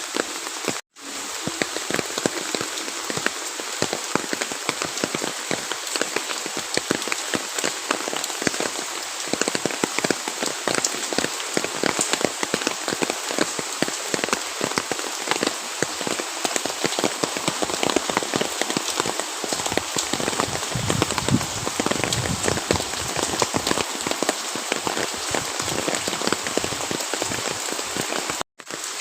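Steady rain falling, a dense patter of drops hitting a surface, broken by two very short gaps of silence, one about a second in and one near the end.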